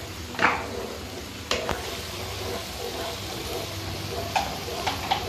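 Thick white sauce sizzling steadily in a nonstick frying pan as a spatula stirs and scrapes through it, with a few sharp taps of the spatula against the pan.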